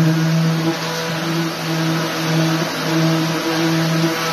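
Electric drywall sander with a dust-extraction hose, running against a wall patch: a steady motor hum over a dense hiss of sanding and suction, the hum dipping briefly several times.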